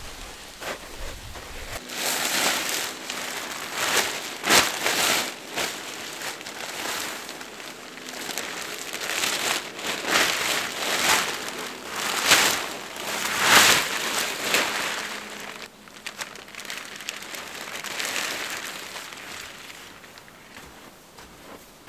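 A tarp being spread and handled, its fabric rustling and crinkling in irregular bursts, louder in the first two-thirds and fading near the end.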